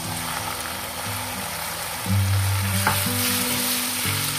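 Blended chili spice paste and sliced shallots sizzling in hot oil in a wok, stirred with a spatula as the paste is sautéed. Soft background music plays underneath.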